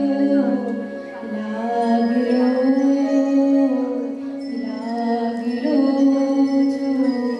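Music accompanying a Bengali dance drama: a gliding melody over long held drone tones.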